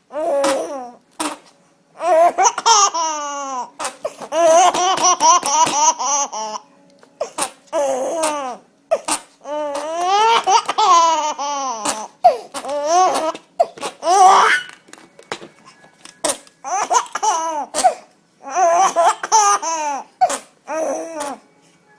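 A baby laughing hard and high-pitched, in a string of fits of one to three seconds each with short breaks for breath between them.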